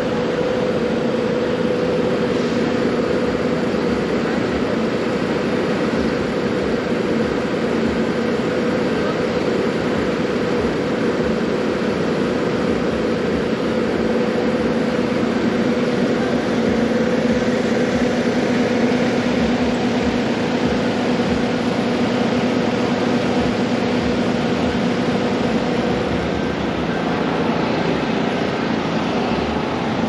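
Loud, steady mechanical noise with a constant low two-note hum that fades out a few seconds before the end.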